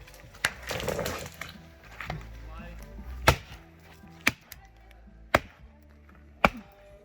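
Dead wood being chopped: sharp woody blows, one near the start and then four about a second apart, the first of those the loudest.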